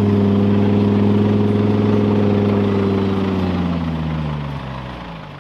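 Off-road race vehicle's engine running at steady revs, then its pitch sinks and the sound fades away over the last two seconds.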